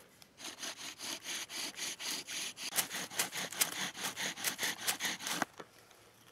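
Bow drill fire-making: a wooden spindle grinding in the notch of a wooden fireboard as the cord bow is sawed back and forth, a rasping stroke about four times a second, louder from about halfway through. It stops abruptly about a second before the end, with the board smoking as friction builds an ember.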